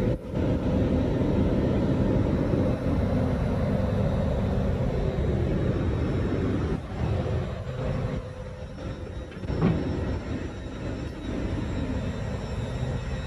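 Low steady rumble with a faint constant hum from a Lumo electric train standing at a station platform, with one brief thump about ten seconds in.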